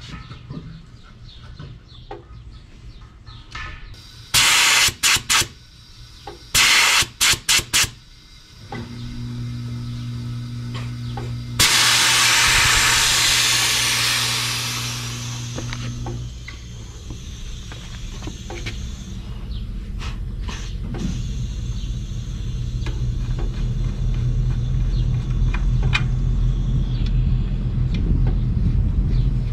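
Refrigerant gas hissing through the hoses of an air-conditioner outdoor unit: a few short, sharp blasts, then a sudden long rush of gas about twelve seconds in that fades away over several seconds as the cylinder valve is opened and the system fills for a leak check. A low hum sits under the rush, and a low rumble builds in the last part.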